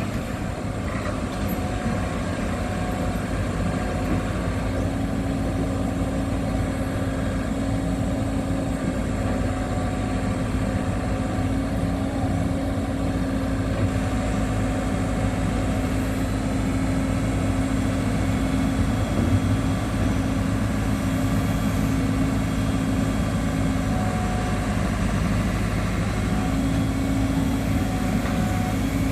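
Cat 313 excavator's diesel engine running steadily, with a low hum that drops away briefly about 24 seconds in.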